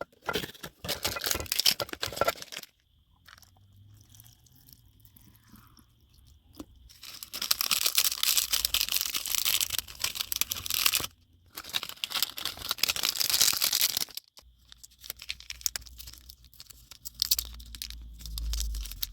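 Plastic wrapping and packets of an instant rice noodle soup cup being torn open and crinkled, in several loud bursts with quieter pauses between. A low rumble runs under the last few seconds.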